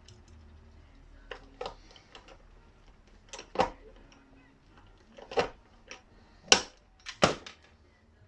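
A string of sharp knocks and clacks of hard parts being handled and set in place, about six in all, the loudest in the second half.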